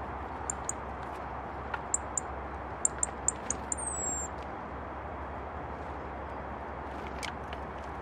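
A small songbird calling: short, very high thin notes, in pairs and then a quick run, ending in a falling slurred note about four seconds in, over a steady background rush.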